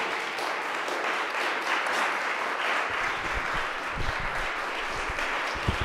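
Audience applauding steadily, with a few dull knocks in the second half.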